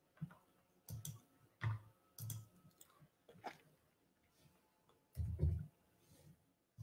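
Faint scattered clicks and soft knocks, about eight of them at uneven spacing, the loudest about five seconds in.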